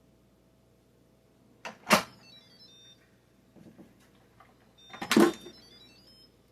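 Two sharp metallic clanks about three seconds apart, each trailed by a brief ringing, with softer handling noises between them: metal cookware being handled in a kitchen.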